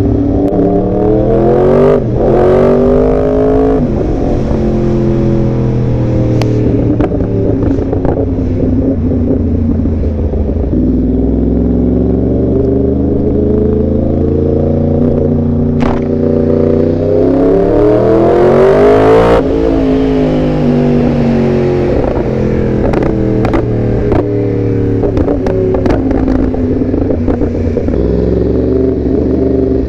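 Yamaha YZF-R1's inline-four engine under way on the road, its pitch climbing and dropping as the throttle opens and closes through the gears. The longest climb, about two-thirds of the way in, cuts off sharply before the engine settles back to lower running.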